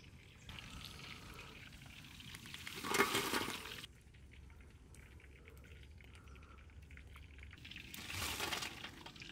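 Battered fish pieces deep-frying in a large iron kadai of hot oil: a steady sizzle that swells loudly about three seconds in and again near the end.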